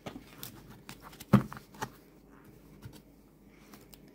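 Cardboard tarot deck boxes and cards being handled and set down on a table: a few short taps and rustles, the loudest tap about a second and a half in.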